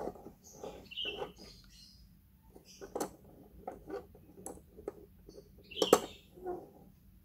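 Small plastic toy Ferris wheel turned by hand: irregular clicks and short high squeaks of plastic parts rubbing, with one louder knock about six seconds in.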